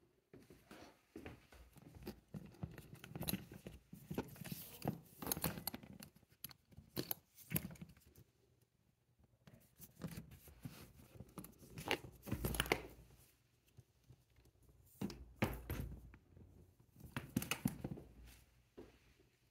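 Handling noise from a Louis Vuitton Monogram handbag being touched and moved: irregular rustling and scraping with many small clicks from its brass zipper and hardware.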